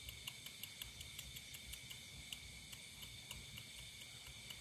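Night insect chorus: a steady high trilling, with faint regular ticks about three a second that fade out near the end.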